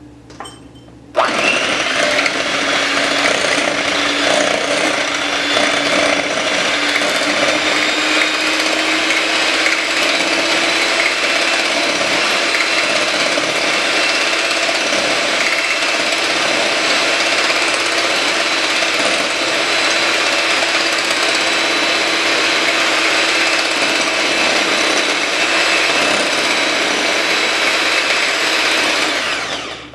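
Electric hand mixer running steadily, its beaters whisking eggs in a glass bowl. It switches on about a second in and stops just before the end, its motor pitch rising slightly over the first few seconds.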